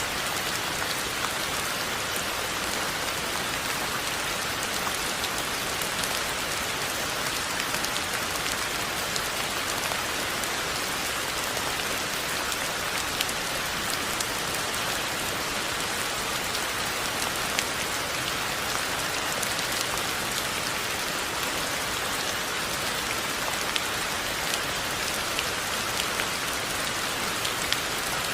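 Steady rain falling, an even hiss with scattered sharper drop hits on nearby surfaces.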